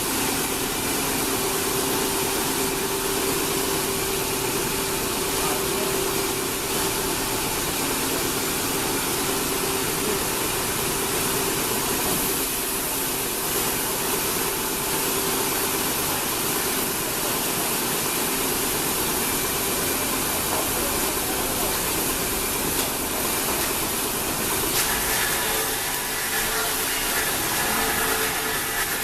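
A machine running steadily: an even mechanical noise with a faint constant hum, its tone shifting slightly near the end.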